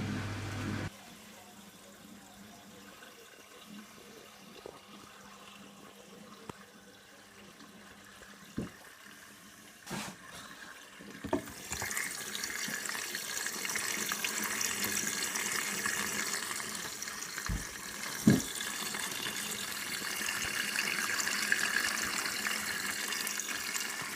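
Indesit 860B washing machine: its low machine hum cuts off about a second in, a few sharp clicks follow, and from about halfway through water hisses steadily into the machine as it fills for the next stage of the cottons wash.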